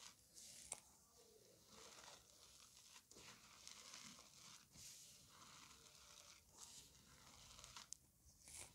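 Hands rubbing and pressing soft, powdery gym chalk against a hard surface: faint scratchy crunching and rustling, with a sharp crackle about a second in and another near the end.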